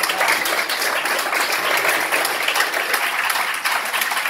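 Audience applauding: many hands clapping at once in a steady, unbroken stream.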